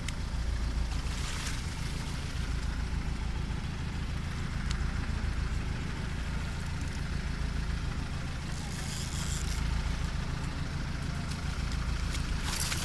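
Fishing boat's engine idling with a steady low hum, with water splashing briefly against the hull twice.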